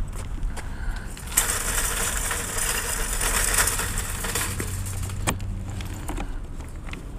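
Keys jangling and small clicks as a motorcycle's hard saddlebag latch is unlocked and worked, with one sharp click a little after five seconds in. A loud rushing noise runs for about three seconds, starting about a second and a half in.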